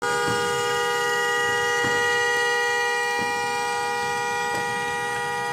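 Vehicle horns blaring together in one steady, unbroken chord that holds its pitch throughout, with a few faint knocks under it.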